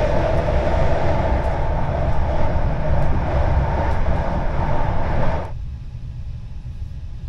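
Passenger train running along the track, heard from inside the carriage: a steady low rumble with a loud rushing hiss of wheel and running noise. About five and a half seconds in, the hiss cuts off abruptly, leaving only the low rumble.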